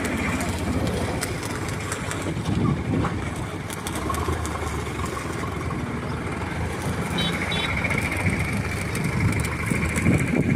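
Excavator engine running, a steady low drone with a steady high whine above it.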